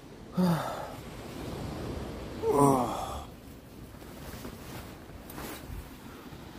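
A man's waking noises: a short falling grunt about half a second in, then a longer, louder yawn that falls in pitch about two and a half seconds in.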